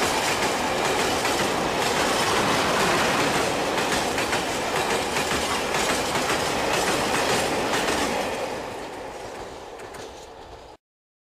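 Freight train of empty sulfuric-acid tank wagons rolling past, wheels clicking over the rail joints. The sound fades as the last wagon goes by, then cuts off suddenly near the end.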